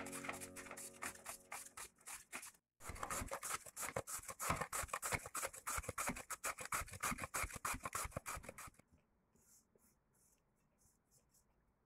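Carrot being grated on a plastic julienne grater: quick, even rasping strokes, with a brief pause about two and a half seconds in. The strokes stop near the end, leaving faint scraping as the shreds are pushed across a plate.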